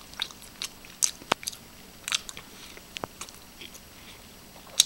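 A person biting and chewing a stale slice of wholemeal bread in a hurry, with irregular sharp mouth clicks between the chews.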